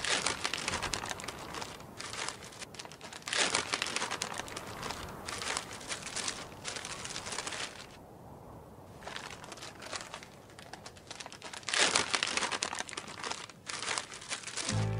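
Paper crinkling and rustling in irregular bursts, with a quieter lull about eight seconds in and the loudest burst about twelve seconds in.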